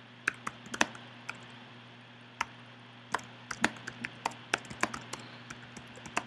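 Typing on a computer keyboard: irregular keystroke clicks, a few at first, a pause of about a second, then a quicker run of keys, over a faint steady hum.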